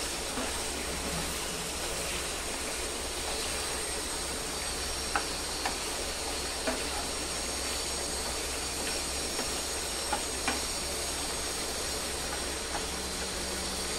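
Chicken pieces and ginger-garlic paste sizzling in hot oil in a pan over a high flame, a steady hiss. A few light knocks of the wooden spatula against the pan come in the middle of it.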